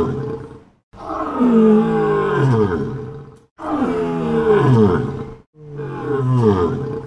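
Lion roaring: a run of long roars with short breaks between them, each sliding down in pitch.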